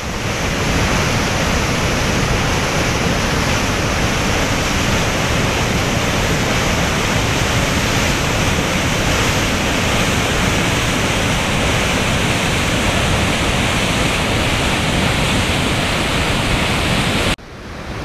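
Kivach waterfall close by, a steady loud rush of white water over rock. It cuts out briefly near the end and then comes back.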